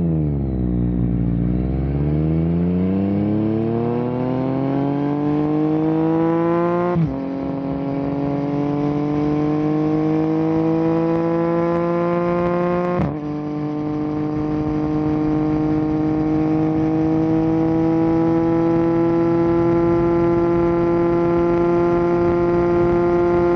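2022 Yamaha Tracer 9 GT's 890 cc inline-three engine, through an unbaffled Akrapovic full exhaust, pulling away and accelerating. Its revs dip briefly as it moves off, then climb and drop sharply at upshifts about seven and thirteen seconds in, before it runs at a near-steady, slowly rising pitch.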